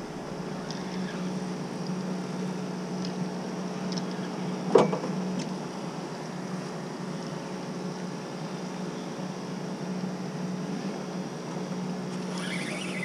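Boat outboard motor idling with a steady low hum. A single short knock comes about five seconds in.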